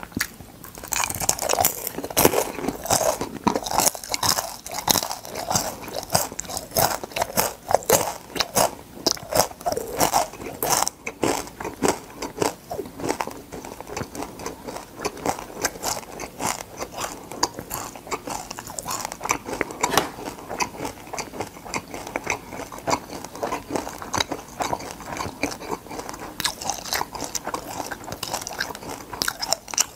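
Crunching and chewing of crisp fried crab: a quick, dense run of sharp crunches as the pieces break between the teeth.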